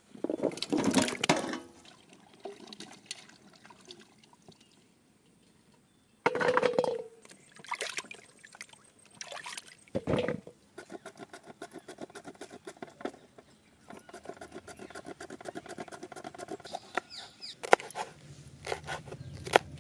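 Wet, liquid sounds in three loud short bursts, then a longer stretch of quieter rapid ticking.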